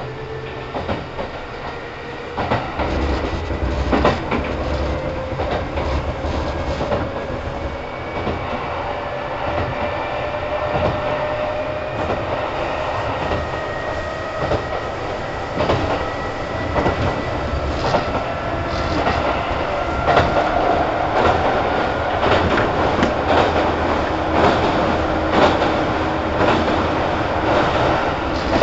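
Kintetsu 2800 series electric train heard from on board while running, its motor whine slowly rising in pitch as it picks up speed. Under it runs a steady rumble of wheels on rail with scattered knocks over rail joints.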